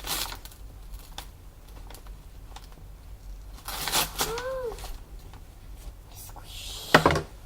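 Plastic packaging being handled and opened: crinkling and scattered light clicks, a longer rustle midway with a brief rising-and-falling squeaky tone, and a loud sharp snap near the end.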